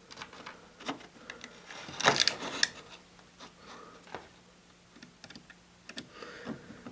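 Scattered small clicks and scrapes of screws being driven with a screwdriver into a plastic robot power base, with a busier run of clicks about two seconds in.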